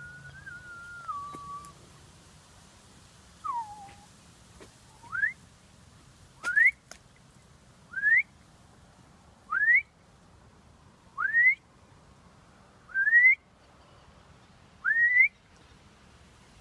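A person whistling: a held note that steps down in pitch and stops, a short falling note, then seven short whistles that each slide upward, evenly spaced about one and a half seconds apart.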